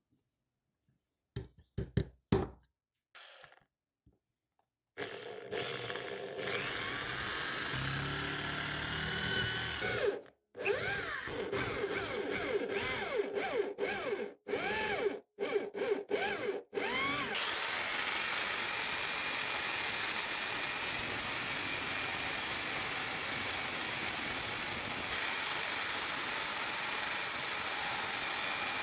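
A few sharp taps on a metal hinge, then an electric drill boring through it in bursts, its whine rising and falling with several brief stops. About halfway through, a power grinder starts cutting into a steel disc, throwing sparks, with a loud steady grinding that runs on from there.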